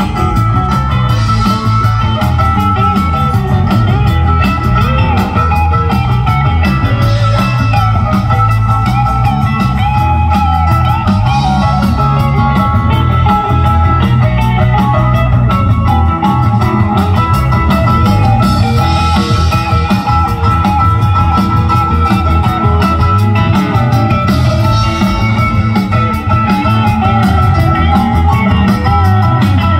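Live rock band playing an instrumental stretch: electric guitar to the fore over bass guitar and drums.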